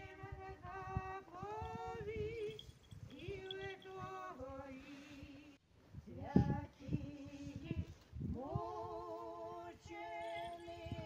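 Unaccompanied funeral chant sung slowly on long held notes that slide from one pitch to the next, breaking off briefly about halfway through.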